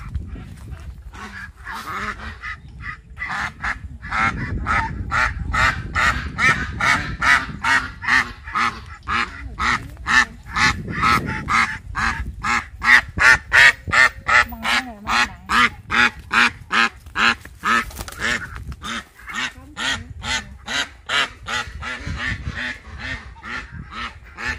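Domestic duck quacking rapidly and over and over, about three or four loud quacks a second, in alarm at being caught and carried upside down by its legs.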